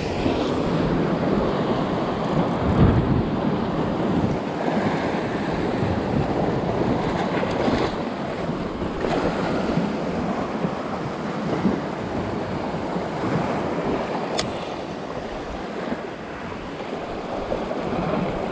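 Wind and sea waves, with wind buffeting the microphone as a steady rushing noise. A single faint sharp click comes about two-thirds of the way through.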